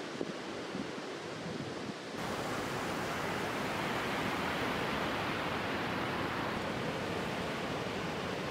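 Wind with low buffeting on the microphone, then about two seconds in an abrupt cut to a steady hiss of surf washing onto a sandy beach.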